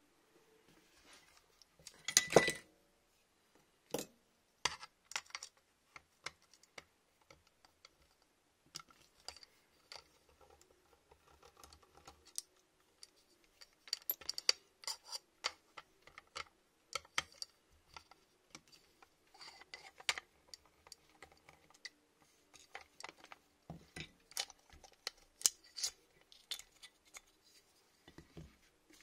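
Scattered clicks, taps and knocks of an airsoft AEG's gearbox, receiver and small metal and plastic parts being handled during disassembly, with a louder clatter about two seconds in.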